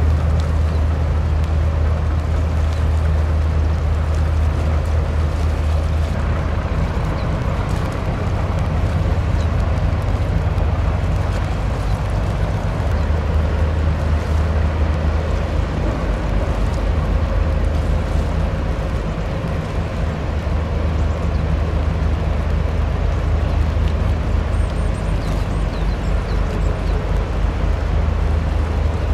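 Steady low drone of the engines of the Japan Coast Guard patrol ship PLH21 Fusou passing close by, under a continuous rushing hiss.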